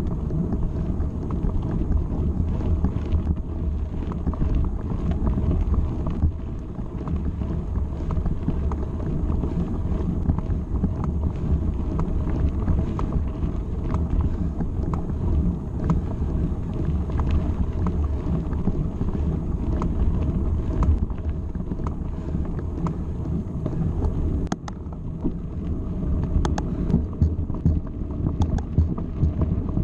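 Wind buffeting an action camera's microphone over the steady rumble of mountain bike tyres rolling on a gravel track, with many small sharp clicks and rattles from stones and the bike, sharper near the end.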